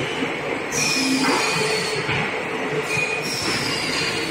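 Double-pot mixer for cutting-disc raw materials running with a steady hum as its mixing head swings down over a pot. Two high squeals fall in pitch, about a second in and again just past three seconds.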